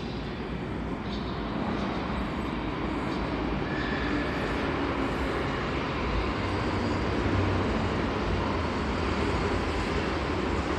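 Metro train approaching through the tunnel into the station: a steady low rumble that grows gradually louder.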